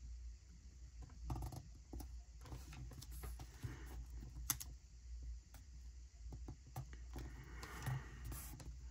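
Faint scattered taps and light rustles of paper and a pen being handled on a tabletop, over a low steady hum.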